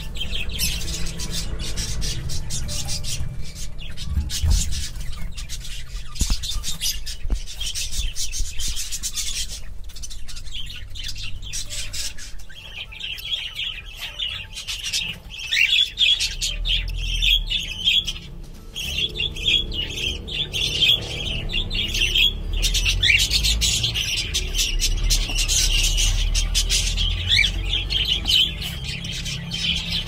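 Cockatiels chirping and squawking in quick high calls, which become denser and almost continuous about halfway through.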